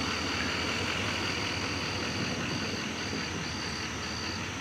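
Pickup truck engine running at low speed as the truck creeps forward, a steady low rumble. Above it is a high, thin tone that keeps switching on and off.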